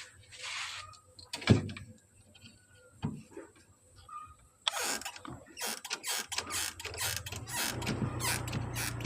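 Knocks and clicks of hands and tools working on a refrigerator's body at a loose bolt hole, with a sharp knock early on. From about six seconds in a steady low hum sets in with rapid clicking over it.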